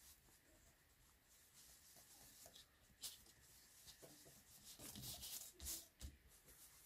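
Foam ink applicator rubbed and dabbed on embossed paper: faint, soft rubbing, with a sharp scuff about three seconds in and louder scuffing in the second half.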